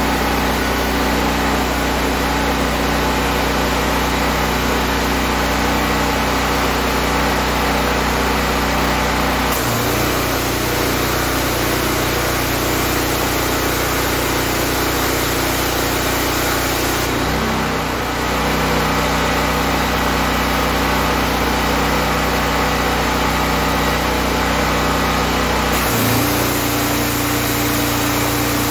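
Honda GX390 single-cylinder engine running a belt-driven pressure washer pump, its note changing as the spray gun is triggered about ten seconds in, released around seventeen seconds and triggered again near the end, with the high-pressure water jet hissing while it sprays. The pump is now building pressure, with its unloader poppet valve turned the right way round.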